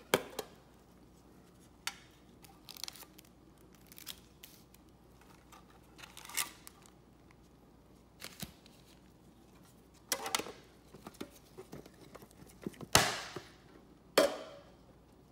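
Gloved hands handling a metal collector's tin and a stack of foil-wrapped trading card packs: scattered crinkling, rustling and light clicks, with a cluster about ten seconds in and two loud sharp crinkles near the end.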